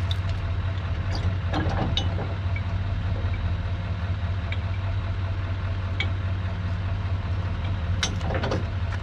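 Pickup truck engine idling steadily, with a few brief knocks about two seconds in and again near the end.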